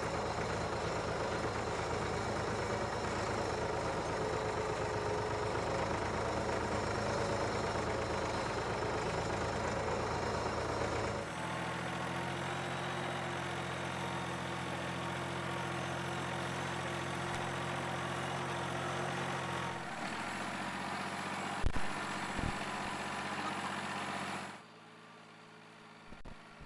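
Tractor diesel engine running steadily in low gear while pulling a tine cultivator through sandy soil. About eleven seconds in the engine sound turns lighter and clearer, a couple of sharp knocks come a little after twenty seconds, and the sound drops much quieter near the end.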